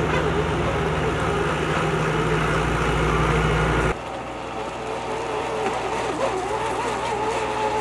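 Tractor engine running steadily with a wavering whine while its mounted auger drills a hole for a pole. About four seconds in, the sound drops and the low rumble thins out.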